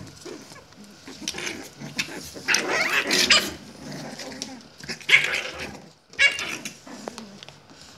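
Puppies play-fighting, making rough yaps and growly vocal sounds at each other. The loudest run comes about two and a half to three and a half seconds in, followed by two short sharp outbursts around five and six seconds in.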